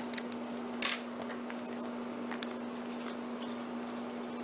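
Piezo igniter of a homemade mini cannon (taken from a Scripto barbecue lighter) clicking several times, mostly in the first couple of seconds, without the cannon going off. This is the unreliable ignition of this cannon. A steady low hum runs underneath.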